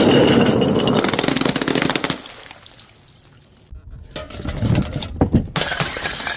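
Brittle material being crushed: a dense, rapid crackling crunch that fades after about two seconds, then a second bout of crunching and cracking starts about four seconds in.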